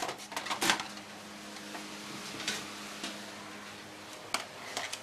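Computer case parts being handled and fitted: a quick cluster of clicks and knocks in the first second, then a few single clicks spread through the rest.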